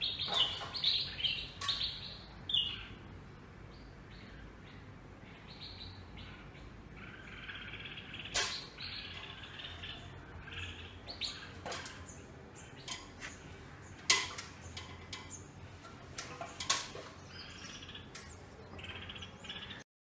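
Small birds at a nest chirping in short bursts of high chirps, busiest in the first few seconds. Several sharp clicks come through as well, the loudest about two-thirds of the way in.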